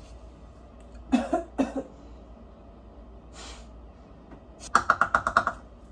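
A woman coughing from bleach fumes she has been breathing in: two short coughs about a second in, a breath a little later, then a quick run of about eight short sounds near the end.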